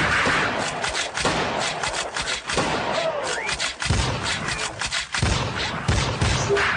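Electronic dance-show soundtrack of sound-effect hits: rapid runs of booms, impacts and gunfire-like bursts, with a short pitch sweep about three seconds in.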